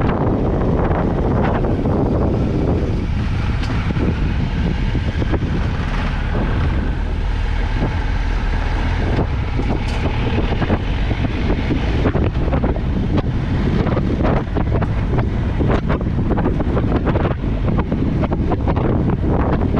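Triumph Tiger 1200 XCA's three-cylinder engine running under way, heavily buffeted by wind on the microphone, with frequent short knocks and rattles.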